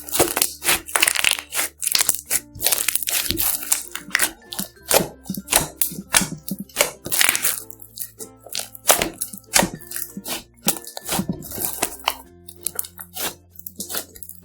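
Slime being squeezed and worked by hand, crackling and popping in many sharp, irregular clicks, over light background music.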